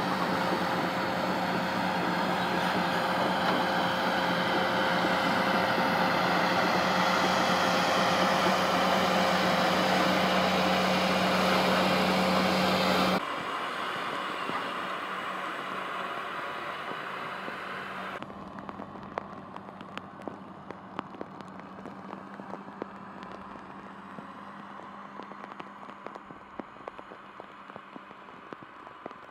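An engine idling with a steady hum over a hiss of rain. About thirteen seconds in the sound cuts to a quieter hiss of rain with scattered drops ticking, slowly fading.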